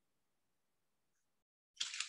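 Quiet room tone, then near the end a brief crinkling rustle of parchment paper being handled and laid down.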